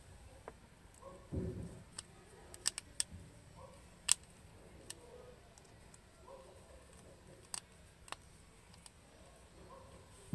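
Faint handling of a small plastic mains plug and a thin screwdriver: scattered sharp little clicks and taps of metal on plastic and on the cable-clamp screw, with a soft low knock about one and a half seconds in.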